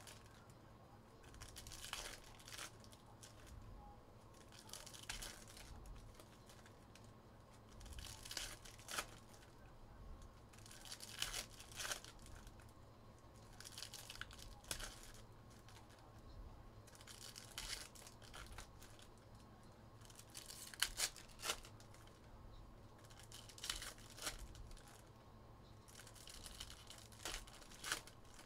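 Trading-card pack wrappers being torn open and crinkled in short, irregular bursts every second or two, with sharp crackles among them.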